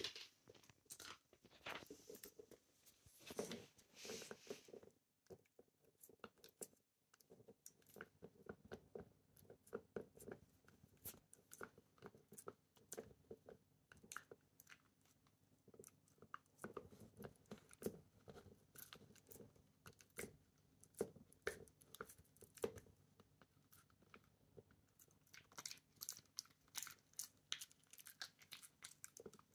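A Shiba Inu gnawing on a hard chew stick: faint, irregular crunching bites and chewing, with a short lull about five seconds in.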